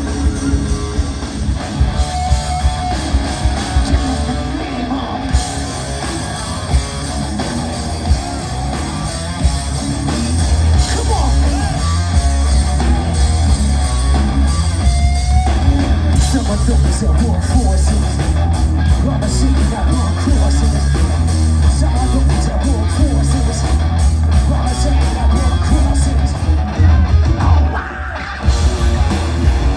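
A live metal band playing loud: distorted electric guitars, bass guitar, drum kit and a singer, very heavy in the low end, with a brief break in the music near the end.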